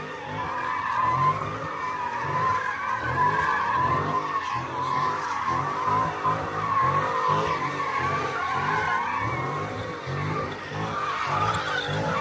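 A car's tires squealing in a continuous skid while its engine revs in quick, repeated surges, about twice a second.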